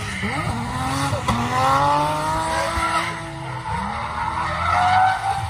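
Drift car's engine revving hard as it slides sideways through a corner, with its tyres squealing. The revs climb, drop about three and a half seconds in, then climb again.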